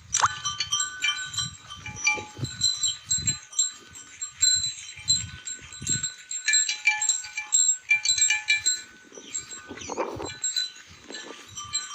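Bells on grazing livestock clinking and ringing irregularly as the herd moves, with low thuds from the animals and a single animal call about ten seconds in.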